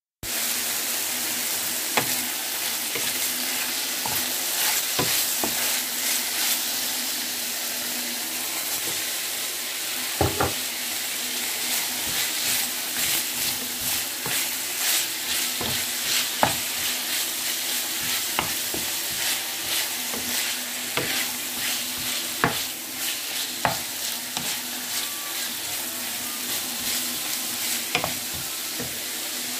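Food sizzling steadily in a hot frying pan while a utensil stirs it, with sharp clicks and scrapes against the pan now and then.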